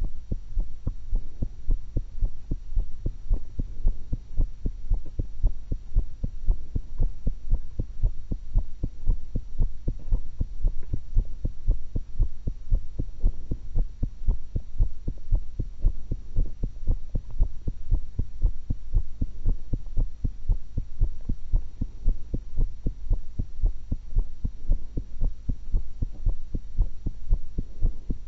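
Human heartbeat picked up through a stethoscope: steady, evenly repeating lub-dub beats, low and thudding.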